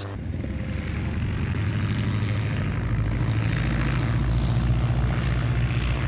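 Propeller aircraft engine droning steadily in flight, with a rushing airy noise that swells a little as it goes.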